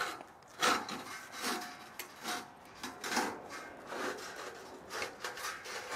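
Gloved hands hauling hard on a rope to tip over a stiff breakdown light pole: a series of short rubbing, scraping strokes, about one a second.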